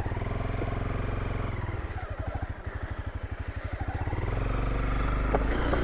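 Honda CRF250L single-cylinder four-stroke engine at low speed: revs rise as the throttle opens, drop back to a slow putter near the middle, then rise again and hold near the end. There are a couple of sharp knocks, one near the start and one near the end.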